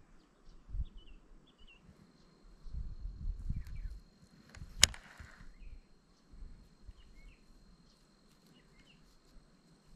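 Quiet outdoor ambience with a few short bird chirps and low thumps in the first half, broken by one sharp click about five seconds in. A faint steady high whine runs from about two seconds in.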